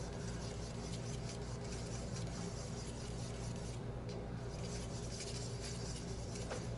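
Steady low hum and faint hiss of room tone, with faint light rubbing from a thin wooden stick stirring pipe stain in a small plastic cup, and a few soft ticks near the end.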